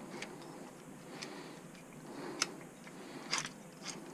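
A few light clicks and taps as the cordless angle grinder's guard is turned round and handled, the sharpest about halfway through and a quick cluster near the end.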